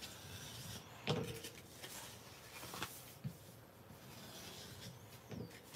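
Faint scraping of a bone folder drawn along score lines in white cardstock to burnish them, in several separate strokes, with a few light knocks of the tool and paper against the desk.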